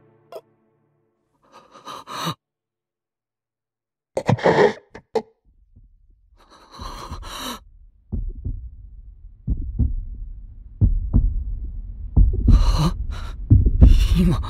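A person's sharp, shaky gasps and breaths out of near silence. From about eight seconds in, a low rumble swells beneath them with heavy thumps like a pounding heartbeat.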